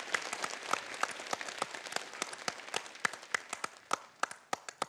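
Applause from several people clapping, dense at first, then fading and thinning to scattered separate claps toward the end.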